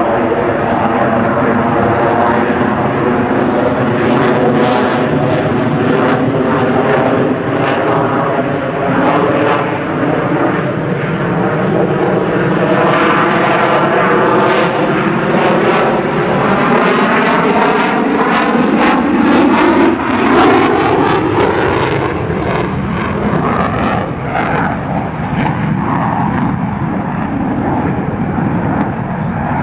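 Loud, continuous jet engine noise from an F-22 Raptor's twin Pratt & Whitney F119 turbofans as it flies overhead, with a sweeping, phasing whoosh as the aircraft passes. It turns harsher and crackling about two-thirds of the way through, where it is loudest.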